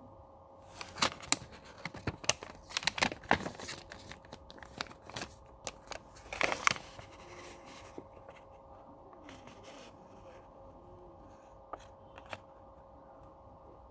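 Paper package insert rustling and crinkling as it is handled and turned over, in a run of sharp crackles that starts about a second in and lasts about six seconds, then only two faint clicks near the end. A faint steady hum runs underneath.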